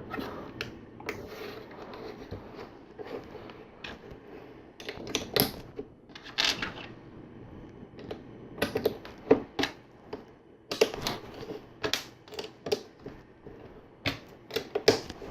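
Plastic LEGO bricks and plates being handled and pressed together, giving sharp, irregular clicks in clusters with short pauses between.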